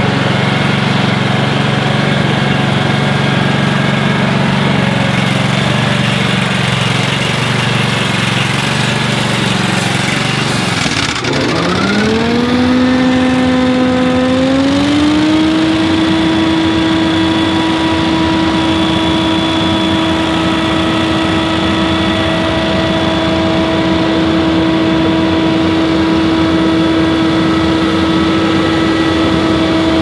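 Stand-on leaf blower's engine idling, then throttled up about eleven seconds in. The pitch rises in two steps and settles into a steady, strong full-speed tone from the engine and fan.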